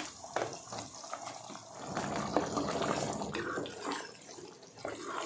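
Wooden spatula stirring thick chicken gravy in a steel pot, wet sloshing and squelching of the cooking liquid with a few short knocks and scrapes against the pot.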